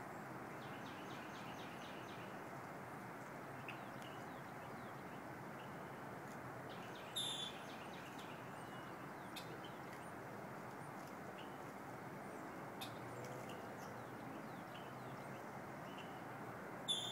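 Small birds chirping now and then, with two short, louder high-pitched calls, one about seven seconds in and one near the end, over a steady outdoor background hiss.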